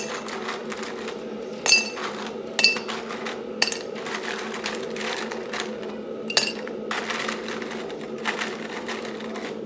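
Dishes and cutlery clinking several times, sharp ringing clinks over a steady low hum.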